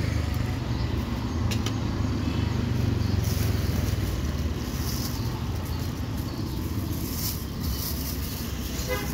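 Steady low engine rumble, with plastic bags crinkling as they are handled, around the middle and again near the end.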